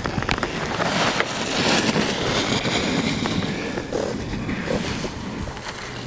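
Racing snowboard edge carving and scraping across packed snow as a rider passes close by. The rushing hiss builds over the first couple of seconds, then fades as the rider moves away.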